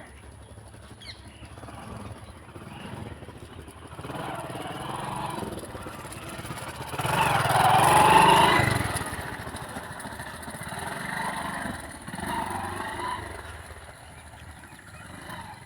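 Engine of a passing motor vehicle. It grows louder to a peak about eight seconds in, then fades.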